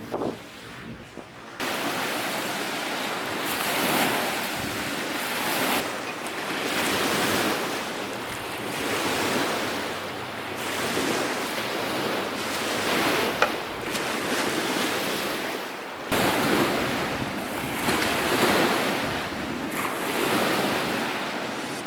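Strong, gusty spring wind blowing hard across the microphone, a loud rushing noise that swells and eases in surges.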